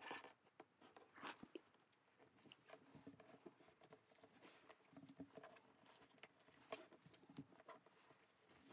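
Faint rustling and light ticks of cotton fabric strips being handled and pinned together, right side to right side, on a tabletop.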